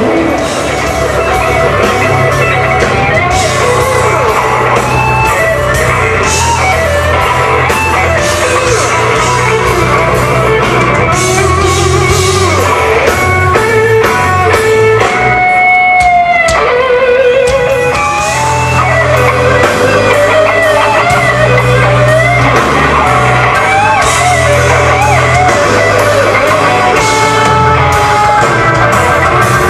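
Live blues band playing loud and amplified: electric guitar lead over bass guitar and drums.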